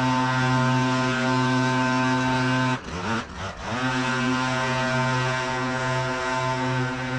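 Gas engine of a leaf vacuum running at steady high speed. About three seconds in its pitch sags and it briefly stumbles, then it climbs back up to speed.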